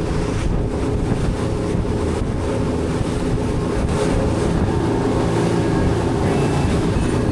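Boat engine running steadily, with wind on the microphone and water rushing past.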